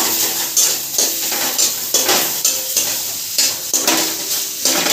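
A spatula scraping and stirring rice frying in a steel kadai over a steady sizzle. The strokes come irregularly, about two a second.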